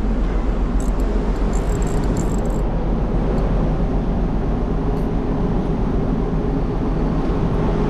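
A steady, loud mechanical drone with a constant low hum and an even tone running through it, like an engine running close by, with a few light clicks in the first couple of seconds.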